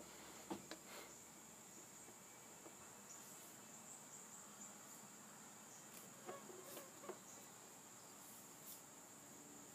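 Near silence: room tone with a faint, steady high-pitched whine held throughout, and a few faint soft taps.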